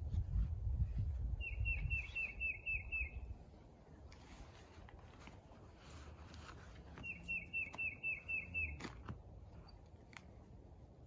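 A songbird sings two runs of about eight quick, repeated, downward-sliding notes, the first about a second and a half in and the second about seven seconds in. A low rumble fills the first two seconds, and a sharp click sounds near the end of the second run.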